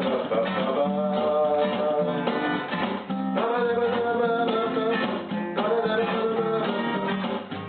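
Instrumental intro to a song: acoustic guitar playing, with a held melody line over it.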